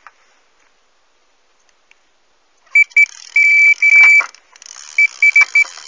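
Carp bite alarm beeping on one high tone in quick, irregular runs, starting nearly three seconds in: line being pulled through the alarm, the sign of a fish taking the bait.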